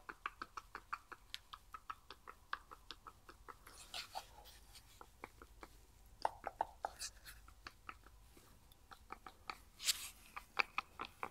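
Old leaking water pump from a 1.5 dCi diesel being rocked and turned by hand: faint, quick clicks and knocks from its pulley and shaft, which have a lot of wobble.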